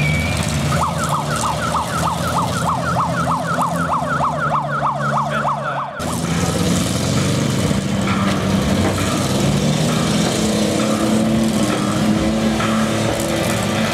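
An electronic yelp siren wails in rapid up-and-down sweeps, about four a second, over running engines, then cuts off abruptly. Demolition derby car engines then run and rev under dusty arena noise.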